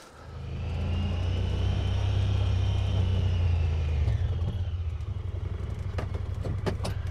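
Honda side-by-side UTV's engine pulling up: a steady low rumble with a whine that rises and then falls over the first few seconds. It settles a little quieter about four seconds in as the machine slows and stops, with a few sharp clicks near the end.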